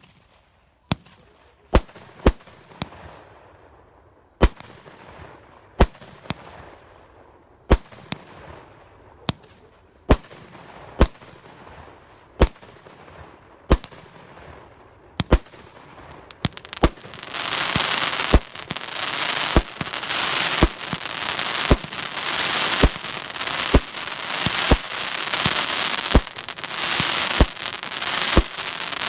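Implosion SU-61 firework cake firing: sharp bangs about every one to one and a half seconds, each followed by a fading crackle. About halfway through, a dense continuous crackle sets in and fills the gaps between the bangs.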